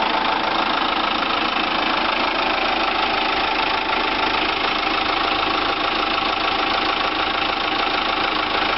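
Kia Bongo 3's J3 common-rail diesel idling steadily at about 800 rpm with an even, rapid diesel clatter. The engine runs on newly fitted Delphi injectors while its fuel supply line draws air.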